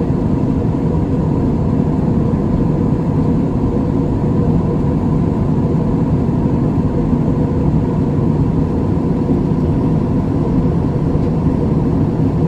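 Steady low drone of airliner cabin noise: engine and air rush with a faint steady hum on top, unchanging throughout.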